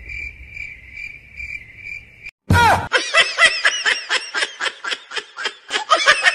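Cricket chirping sound effect for about two seconds. After a brief gap, a sudden loud burst gives way to rapid, repeated laughter.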